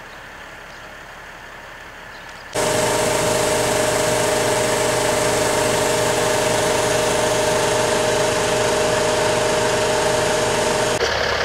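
Faint outdoor ambience, then a milk tanker truck's diesel engine running steadily, loud and even with a clear constant tone in its hum. Near the end the low rumble grows as the truck moves off through the snow.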